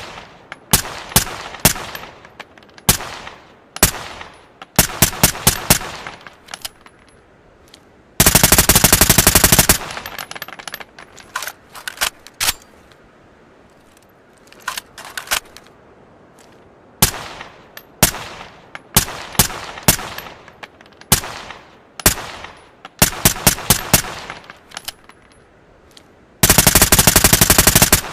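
Suppressed ARN-180 assault rifle firing single shots and short bursts of two to five rounds, each shot with a short ringing tail. It fires two long full-auto bursts of about a second and a half, one about eight seconds in and one near the end.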